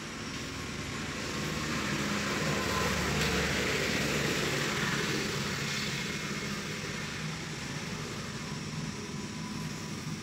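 Steady rushing background noise with a low hum under it, swelling about two seconds in and fading again by about six seconds.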